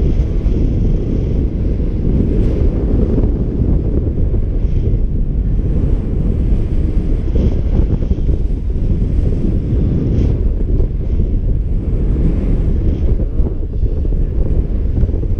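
Airflow buffeting a paraglider pilot's helmet-mounted camera microphone in flight: a loud, steady low rumble of rushing wind.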